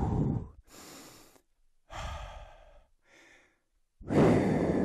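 A man breathing hard from exertion during a single-leg balance exercise. Loud exhales come at the start and about four seconds in, with softer breaths between, close to a headset microphone.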